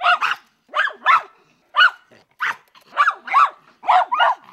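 Miniature schnauzers barking: about ten short, sharp barks in quick succession, often in pairs.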